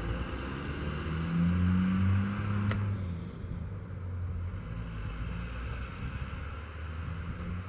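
A single sharp click about two and a half seconds in, as a pressure flaker pops a flake off a stone biface knife. Under it runs a steady low engine-like hum that swells early on.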